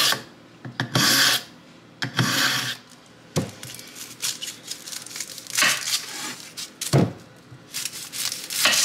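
A kitchen knife drawn across a sharpener in three scraping strokes about a second apart. Then a chef's knife cuts down through a large onion with crunching and scraping, and the blade knocks once sharply against the wooden cutting board.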